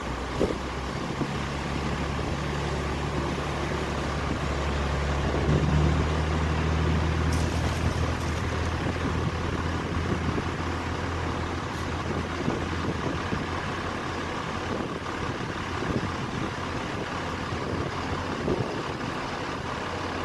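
A small motor launch's engine running under power as the boat pulls away: a steady low hum that swells a few seconds in, then fades. Underneath is a constant wash of water and wind.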